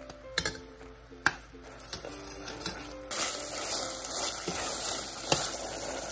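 Metal spoon knocking and scraping against a stainless steel saucepan while curry is stirred, a few sharp clinks. About three seconds in, a steady hiss of the beef and red curry paste cooking in the hot pan takes over.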